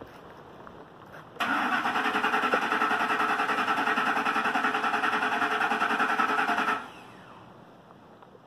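The 2006 Lincoln Mark LT's starter cranking the 5.4-litre V8 for about five seconds with an even, rapid pulsing; the engine turns over but never fires, and the cranking stops abruptly. The owner puts the no-start down to a bad fuel pump.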